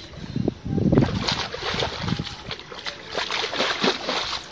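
Hands and feet splashing and squelching in shallow muddy water, in irregular bursts, the loudest about a second in.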